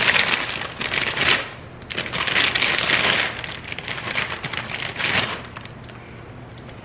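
Plastic bag of tostadas crinkling and rustling as a hand reaches in and pulls a tostada out, in three bursts over the first five seconds or so, then quieter.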